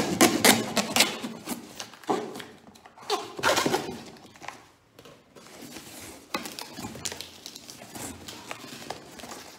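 A knife slitting the packing tape on a cardboard box: irregular scrapes and rasps of the blade on tape and cardboard, loudest in the first few seconds, then quieter scraping.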